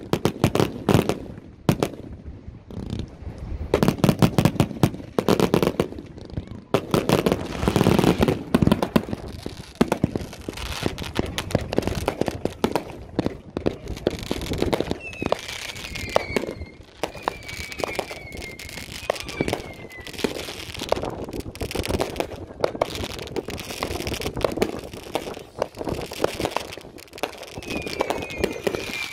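Many consumer fireworks going off at once: a continuous, irregular run of bangs, pops and crackling from aerial bursts. A short falling whistle repeats about once a second around the middle and again near the end.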